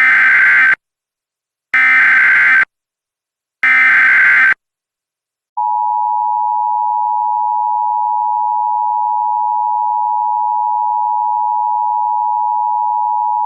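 Emergency Alert System header: three short bursts of SAME digital data tones, each about a second long, followed by the EAS two-tone attention signal, a steady dual tone held for about eight seconds, announcing an emergency alert.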